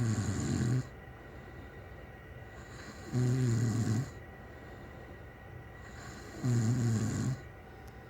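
A person snoring loudly in bed, in a steady rhythm of snores roughly every three seconds, each lasting about a second. The first snore is already ending as the sound begins, and quieter breathing fills the gaps between snores.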